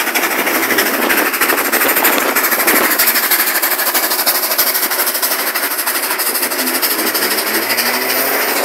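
Steam locomotive 3801 running at speed, its exhaust beating in a fast, even rhythm.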